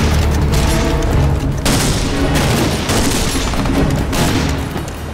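Dramatic background music over a battle: rifle fire and explosion blasts, one after another.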